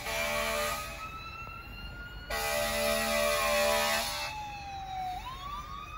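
Emergency vehicle siren wailing, its pitch slowly rising, dropping and then sweeping back up near the end. It is overlaid by horn blasts: one cuts off just under a second in, and a louder one lasts from about two to four seconds in.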